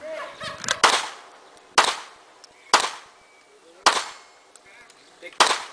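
Five pistol shots about a second apart, each a sharp crack trailing off in a short echo.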